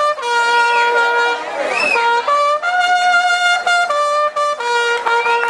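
A trumpet playing long held notes, stepping up and down between a few pitches, each note held about a second.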